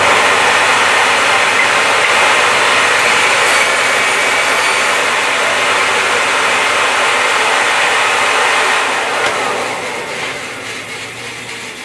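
Record Power BS350 14-inch bandsaw running and ripping a strip of timber along the fence, a loud steady whirr of blade and cutting. It eases off after about nine seconds as the cut ends.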